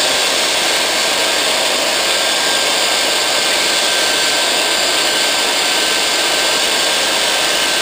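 Small bench belt sander running steadily, its abrasive belt grinding a speckled alder twig that is held against it to sand it round. The sound is an even, unbroken rush of sanding noise with a faint steady whine.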